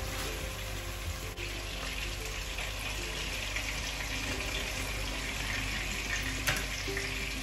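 Steady sizzle of meatballs and peas frying in pans on the stovetop, with a single sharp click about six and a half seconds in.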